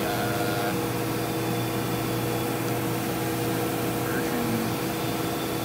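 Steady hum of a powered-up Mazak Integrex CNC turning center standing idle, several constant tones over an even machine drone.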